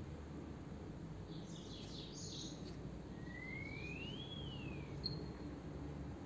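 Faint eggshell cracking and scraping as whole eggs are broken into a glass bowl, with a small click about five seconds in. A single whistled chirp rises and then falls in the background around the middle.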